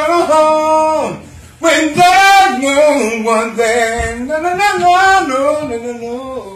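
A man singing unaccompanied: a held phrase slides down and stops about a second in, then after a short breath he starts a new phrase with vocal runs that gradually fades.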